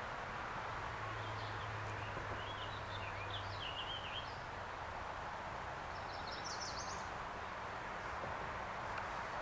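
Woodland songbirds singing, with short warbling phrases in the first half and a quick run of high notes about six seconds in, over a steady background hiss. A low hum runs for the first few seconds.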